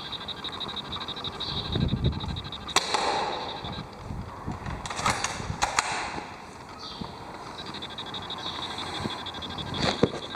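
Airsoft guns firing single shots: sharp cracks about three seconds in, a quick cluster around five to five and a half seconds, and another just before the end.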